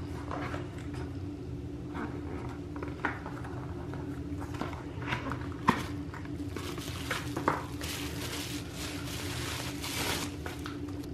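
Packaging being handled: a cardboard wand box opened with light taps and knocks as the lid and inner tray are lifted, then a stretch of crinkling from plastic bubble wrap around the wand.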